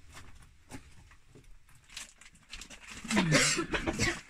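A man's loud, rough, animal-like vocal outburst lasting about a second, near the end, preceded by a few faint knocks.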